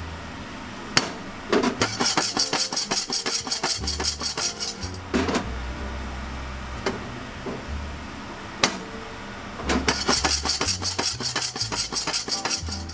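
Roasting coffee beans rattling in a lidded saucepan as it is shaken over a gas flame, in two bursts of about three seconds each, during first crack. Single sharp clicks fall between the bursts, under a steady low hum.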